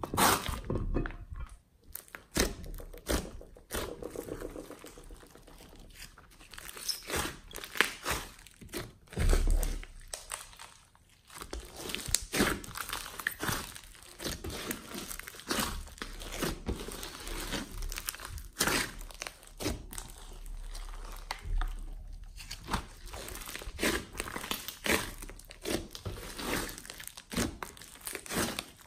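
Hands pressing, squeezing and kneading a large glossy slime studded with foam beads, giving irregular crackling and squishing sounds with a couple of brief quieter pauses.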